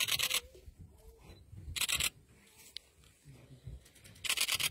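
Camera shutters firing in rapid burst mode, three short bursts of fast clicks about two seconds apart.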